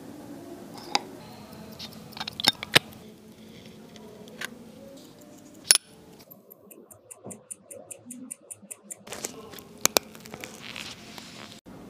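Small sharp metallic clicks and taps of watchmaker's tools on a Tudor Oyster's parts, as the hands are pressed onto the dial and the case and bracelet are handled. In the middle comes a run of even, rapid ticks, about six a second.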